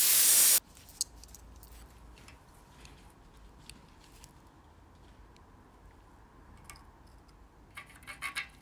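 A loud hiss that cuts off abruptly about half a second in, followed by faint, scattered light clicks and taps of small parts being handled on a workbench.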